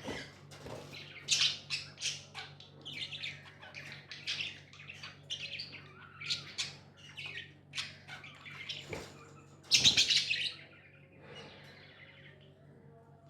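Budgies chirping and chattering in a rapid stream of short high-pitched calls and squawks, with a loud harsh burst about ten seconds in before the calling eases off.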